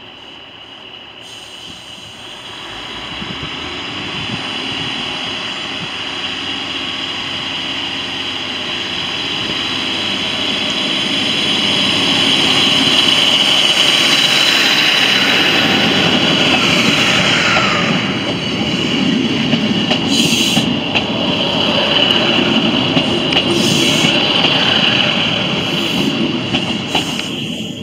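Class 156 Super Sprinter diesel multiple unit passing close by, its diesel engines running with a steady high whine that grows louder as it draws near. A falling tone comes just past the middle, and a few sharp clicks sound near the end.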